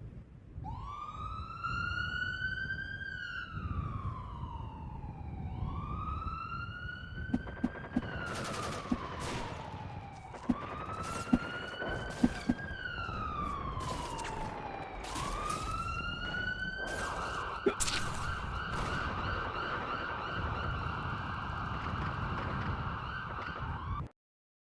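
An emergency-vehicle siren wailing, its pitch rising and falling slowly in four long sweeps, then switching to a fast warbling yelp about two-thirds of the way through before cutting off suddenly near the end. Several sharp knocks sound in the middle and once more near the switch, over a low rumble.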